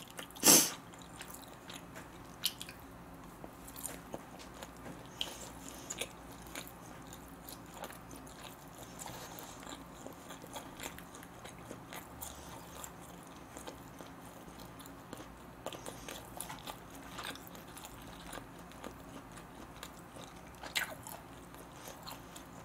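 Close-miked chewing of smoked duck and rice, with soft wet mouth clicks and small ticks throughout and one sharper click about half a second in.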